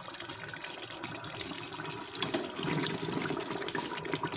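Kofta curry gravy simmering in a pot: steady bubbling with small scattered pops. The curry is nearly done, with oil starting to separate on the surface.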